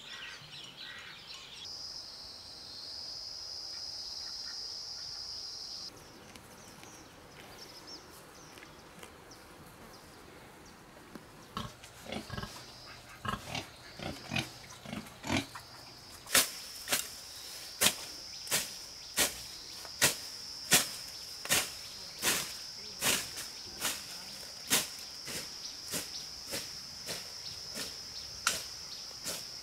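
Pigs grunting in a pen, then a hand tool striking the ground in a steady rhythm, about one and a half strokes a second, as grass is cleared. A steady high insect drone runs beneath.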